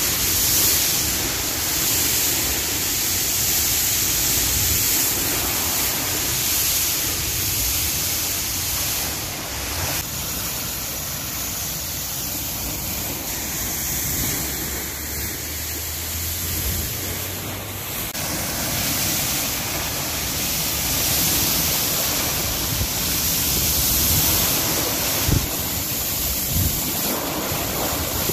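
Water released through a dam's floodgate rushing and churning down a concrete spillway channel into a foaming basin: a steady, loud rush of white water.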